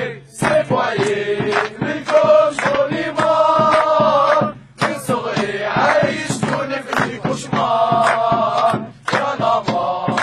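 Male voices chanting a Darija protest song together over percussion, the chant pausing briefly near the start, around the middle and near the end.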